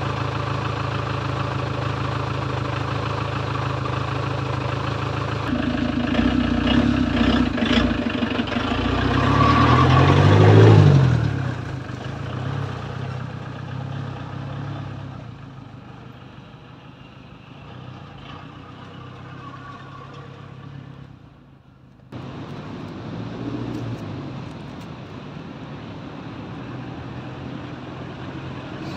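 Van engine idling, then rising as it pulls away, loudest about ten seconds in, and fading as it drives off. After a sudden break about three-quarters of the way through, a van engine is heard running again.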